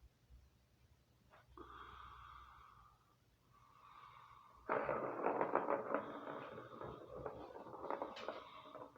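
Faint thin whistling tones, three short stretches about a second each, then from about five seconds in a loud close rustling and scratching with many small clicks.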